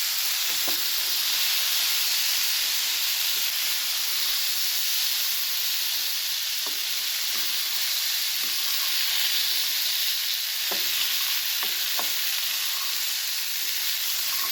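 Boiled black chickpeas being stirred into a hot oil tempering of mustard seeds and curry leaves: a steady sizzle with a few light knocks of the stirring spoon against the pan.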